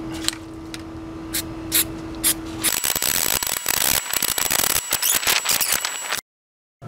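Aerosol can of rubberized undercoating spraying in a steady hiss with a thin high whistle in it, after a few sharp clicks. The spray cuts off suddenly near the end.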